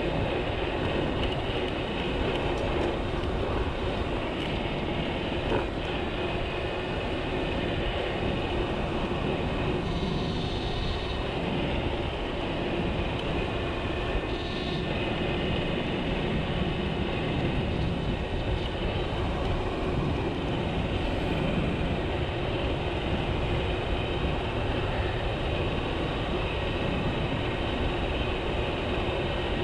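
Dualtron Spider electric scooter cruising at speed on a paved path: a steady rush of wind over the chest-mounted camera's microphone mixed with tire and road rumble, unbroken and even in level.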